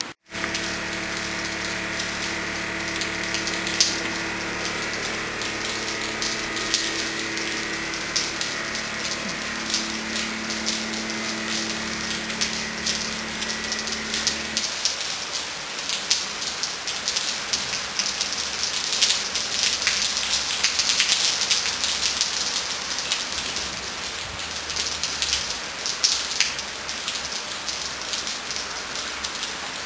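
Steady rain pattering, with the Mercedes Sprinter tractor unit's engine humming as it pulls the stage trailer away; the hum ends about halfway through, leaving only the rain.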